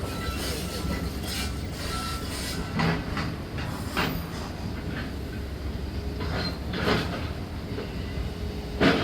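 Heavy demolition machinery running with a steady low engine rumble, broken by sharp metal clanks and impacts about four times.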